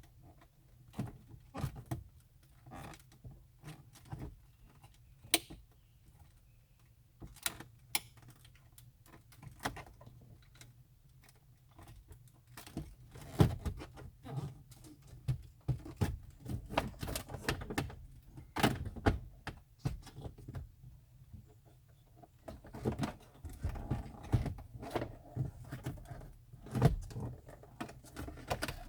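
Irregular plastic clicks, taps and knocks from handling the pickup's stock gauge cluster and unclipping its connector clips while pulling it out of the dash. The knocks come thicker and louder in the second half.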